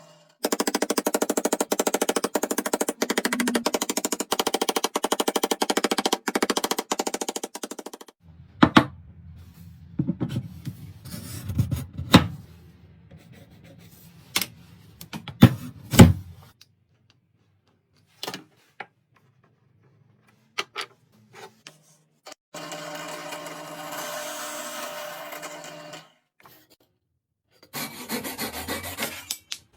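Woodworking tool noise: a tool runs with a fast, even buzz for the first several seconds, then a string of sharp knocks and taps on wood, and later two shorter bursts of steady tool noise.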